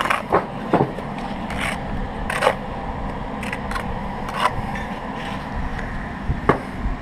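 Bricklaying: a steel trowel scraping mortar on brick and bricks knocking into place, heard as about seven separate sharp scrapes and clicks, over a steady low hum.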